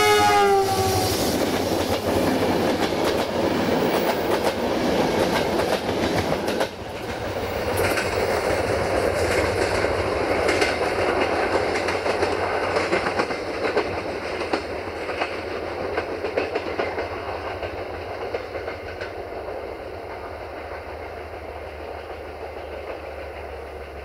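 The multi-tone horn of the GM-built diesel locomotive 65-1300-6 ends with its pitch dropping as the locomotive passes close by. The passenger train then rumbles past, its wheels clicking over the rail joints, and fades as it draws away.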